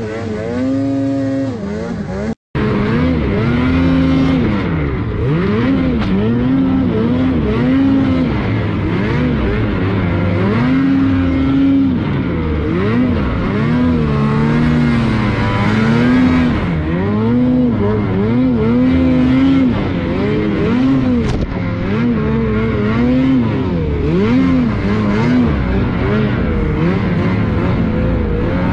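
Snowmobile engine revving up and down again and again as the throttle is worked while riding in deep snow, its pitch rising and falling in quick swells. There is a brief cut-out about two seconds in.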